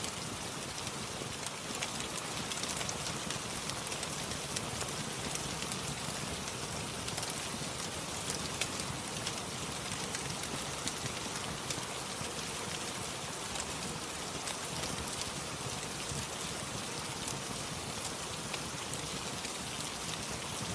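Steady rain, with small sharp crackles of a wood fire scattered through it.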